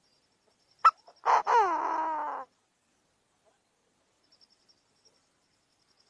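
Chinese francolin calling: a short sharp note about a second in, then one harsh call of about a second whose pitch falls.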